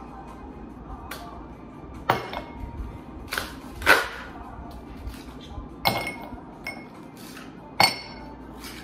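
Ice cubes dropped into a glass tumbler, clinking sharply several times at irregular gaps of about a second, each clink ringing briefly.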